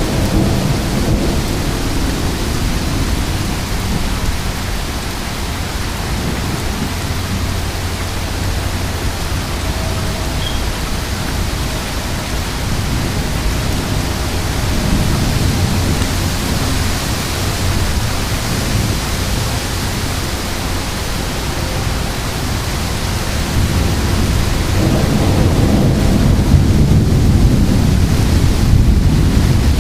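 Heavy thunderstorm rain pouring steadily, with rolls of thunder rumbling low beneath it. The rumble swells about halfway through and again over the last few seconds.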